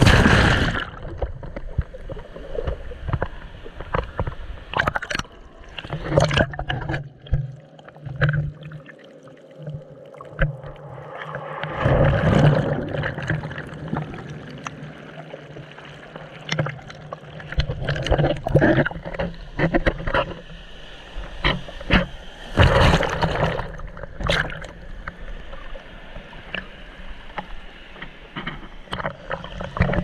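Surf heard from under the water through a submerged camera's housing: a muffled sloshing and gurgling, with a loud splash at the start and irregular knocks and thumps as the waves toss it about. A steady low hum runs underneath from about six seconds in.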